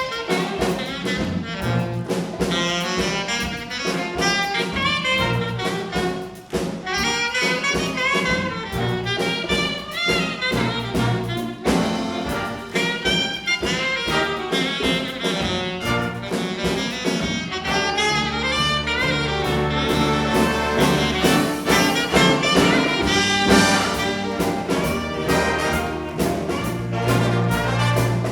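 Junior jazz big band playing live, with trumpets, trombones and saxophones. About two-thirds of the way in, sustained low notes come in under the band.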